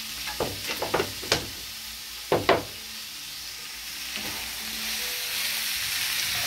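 Huitlacoche with onion and serrano chile sizzling in a frying pan while being stirred, with several sharp knocks and scrapes of a utensil against the pan in the first three seconds. The sizzle then runs steadily and grows a little louder.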